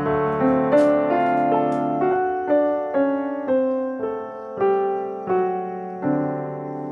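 Background piano music: a slow, soft melody, one note struck about every half second.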